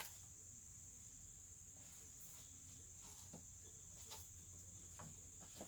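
Near silence: a steady faint high-pitched hiss or whine, with a few faint soft taps scattered through the second half.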